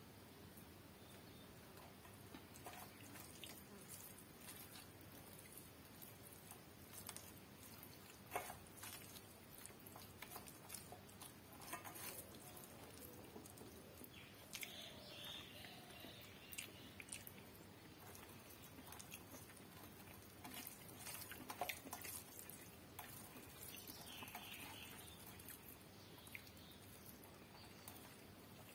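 Faint sounds of eating rice and curry by hand: fingers mixing rice on a steel plate and soft chewing, with scattered small clicks.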